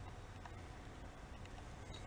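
Quiet workshop room tone with a low hum, and a few faint ticks as a Kohler twin's removed cylinder head is handled and turned over.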